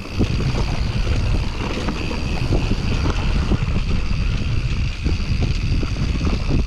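Wind buffeting the camera microphone on a mountain-bike descent, with the bike knocking and rattling over rough ground and a faint steady high whine over it.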